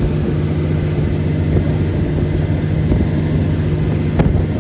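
Motorboat engine running steadily with a low, even hum, and a single short click about four seconds in.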